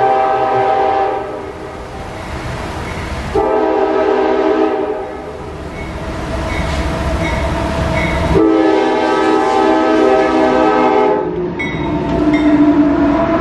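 Diesel freight locomotive's multi-chime air horn blowing a series of long blasts as it approaches a grade crossing, the chord cutting off and starting again several times. Near the end the locomotives pass close by, with engine rumble and wheels clicking over the rail joints.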